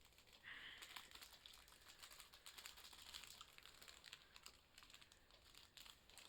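Faint, rapid light clicking and rustling, most likely chilli-flake or seasoning sachets being handled and shaken over the pizza.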